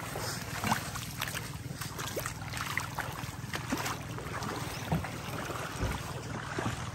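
Small boat's engine running steadily with a low rumble, with wind on the microphone and scattered light knocks.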